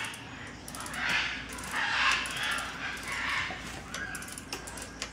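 Bicycle freewheel-type ratchet turned back and forth by hand, its pawls clicking in several short, rapid runs as it slips in the freewheeling direction.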